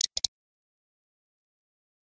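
A synthesized text-message chime cuts off at the very start, followed by two quick high clicks, then dead digital silence for the rest.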